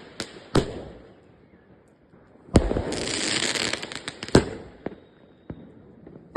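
Fireworks going off: a sharp bang about half a second in, then a louder bang about two and a half seconds in followed by a shower of crackling pops for about two seconds, a few scattered pops, and another bang at the very end.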